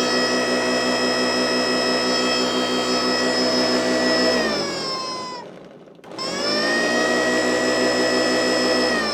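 Vintage Hoover Junior vacuum cleaner running with a loud, high whine. About four seconds in it is switched off and winds down with falling pitch. Near six seconds it is switched on again and spins back up, then begins winding down at the end.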